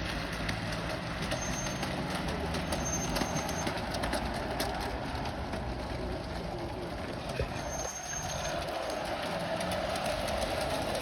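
Garden-scale model locomotive running along garden railway track: a steady running noise with scattered faint clicks, its mid-pitched running sound growing stronger about eight seconds in.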